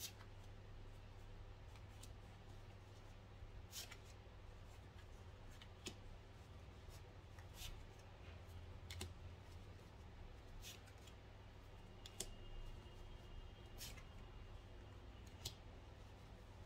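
Tarot cards being drawn from a deck and laid one by one onto other cards on a table: faint, sharp clicks and snaps every second or two, over a low steady hum.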